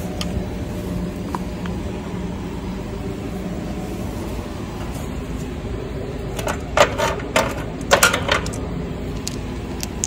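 Loose compressor mounting bolts and washers clinking together as they are picked up by hand from a condensing unit's base pan, a quick run of sharp metallic clinks in the second half, over a steady low hum.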